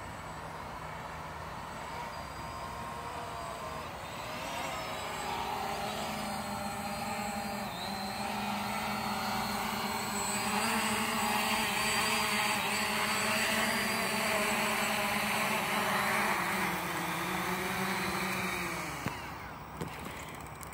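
ZLLRC SG906 Pro quadcopter's brushless motors and propellers whining as the drone flies in close and hovers low, growing louder. Near the end the pitch drops and the motors stop as it lands, followed by a couple of light knocks.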